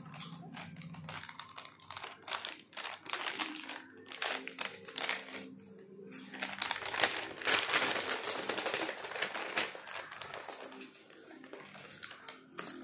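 Lay's potato chips being crunched and handled on a plate, a run of irregular crisp crackles and crunches.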